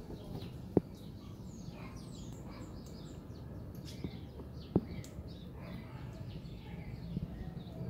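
Parrots calling in many short, high chirps, overlapping throughout. Two sharp knocks stand out, one about a second in and another about five seconds in.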